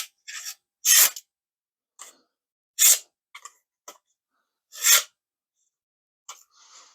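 A factory-sharp pocket knife's high-carbon stainless blade slicing through paper in a series of short rasping cuts, the three loudest about two seconds apart, showing the edge is sharp out of the box.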